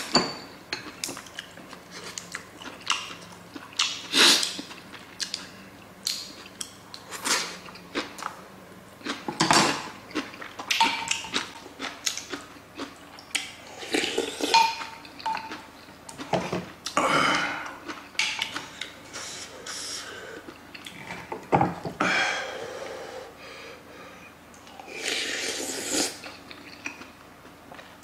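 Eating sounds from a bowl of sundae gukbap: a wooden spoon and chopsticks clicking and scraping against an earthenware pot at irregular intervals, along with slurping of soup and chewing.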